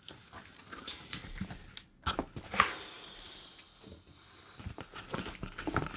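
Cardboard packaging being handled and opened: scattered taps and knocks, with a short rasping rip about two and a half seconds in.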